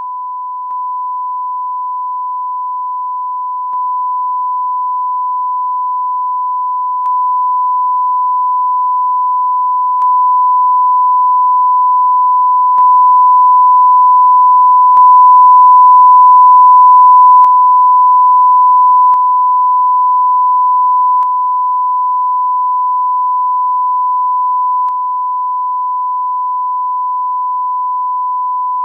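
A steady 1 kHz sine test tone, its level raised in 3 dB steps every few seconds up to full scale about halfway through, then stepped back down. Each level change gives a faint click.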